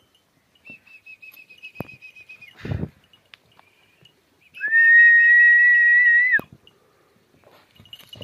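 A person whistling: a faint, quickly pulsing whistle at first, a brief noisy burst a little before three seconds in, then one loud, steady whistled note held for about two seconds and cut off sharply.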